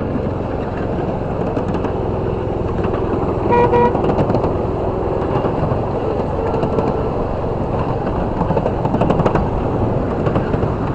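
Ride-on miniature train rolling along its track, with a steady rumble and clatter from the riding cars. About three and a half seconds in, the locomotive gives a short toot.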